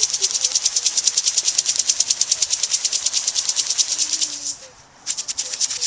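Binary exploding-target powder being shaken hard in a clear plastic jar to mix in the catalyst: a fast, even rattling hiss of about eight or nine shakes a second. It stops for about half a second near the end, then starts again.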